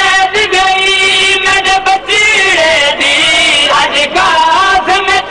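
A man's voice chanting a noha, a Shia mourning lament, in long held notes that waver in pitch, broken by short pauses for breath.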